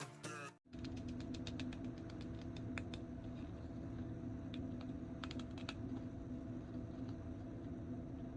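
Background music cuts off suddenly about half a second in, then irregular light clicks and taps sound over a steady low hum.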